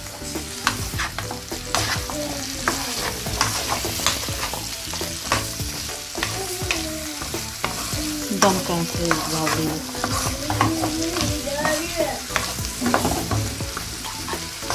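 A wooden spatula stirs and turns sliced sweet pumpkin and onion in a nonstick wok, over a steady frying sizzle. Irregular scrapes and knocks of the spatula against the pan keep coming.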